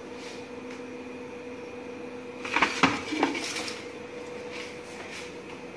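A foil-covered cake dish being handled: a short clatter of knocks and rustling about halfway through, with a smaller knock just after, over a steady hum.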